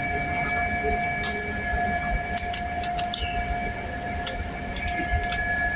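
Steady mechanical whine of several held tones over a low rumble, with scattered light clicks.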